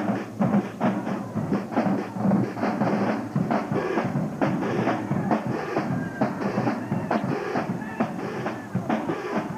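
Marching band drumline playing a cadence: a dense, driving run of drum strokes with cymbal crashes.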